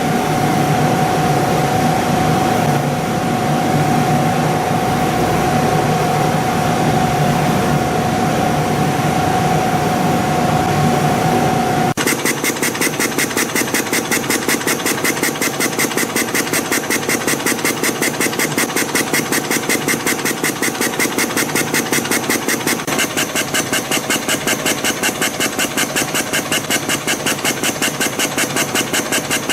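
CNC compression spring coiling machine running. A steady mechanical hum with a held tone gives way about twelve seconds in to a fast, even, repeating clatter as it forms spring after spring.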